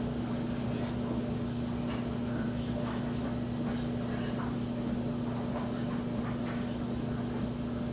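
Steady low mechanical hum over a constant whir, like a fan or household appliance, with a few faint small clicks and taps scattered through it.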